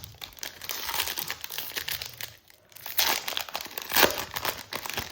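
Foil wrapper of a trading-card pack crinkling and tearing as it is opened, in irregular crackling bursts with a short lull midway, loudest about three and four seconds in.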